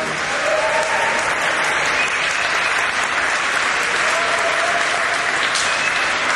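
Audience applauding steadily, with a few faint calls from the crowd.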